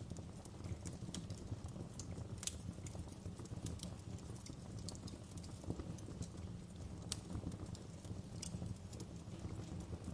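Wood fire burning: a steady low rumble of flames with irregular crackles and sharp pops, a few of them louder snaps.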